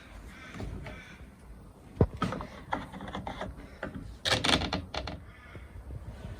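Knocks, clicks and scrapes of a chainsaw and its fuel and bar-oil containers being handled while it is filled: one sharp knock about two seconds in, then a quick cluster of clicks and scrapes a little past the middle.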